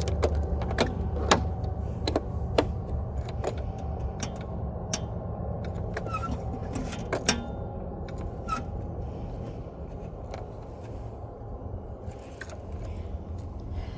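Scattered clicks and small knocks of hands working the controls of a zero-turn lawnmower that does not crank at all: its battery is dead. A low steady rumble runs underneath and eases off over time.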